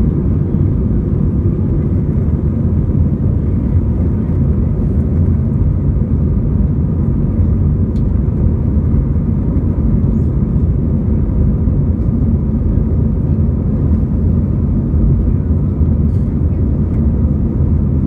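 Airbus A319 jet engines and airflow heard from inside the passenger cabin: a steady, loud, low rumble with a faint whine above it.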